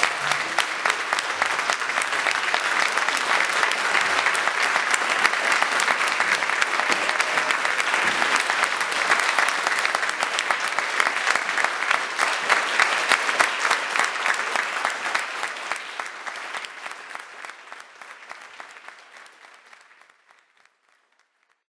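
Audience applauding steadily, fading out over the last several seconds.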